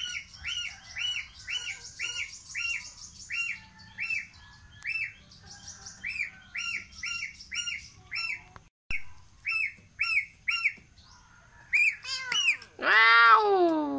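Domestic gosling peeping: a steady series of short, high calls about two a second, breaking off briefly partway through. Near the end comes one loud, drawn-out call that falls in pitch.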